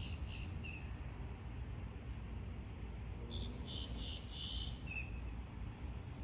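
Outdoor ambience with short high bird chirps near the start and again about five seconds in. In the middle, a high, buzzy call of about five quick pulses lasts roughly a second and a half. A steady low rumble runs underneath.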